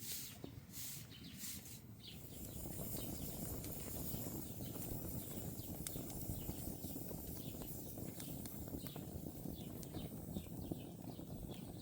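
Scattered faint bird chirps over a steady low rumble of outdoor background noise.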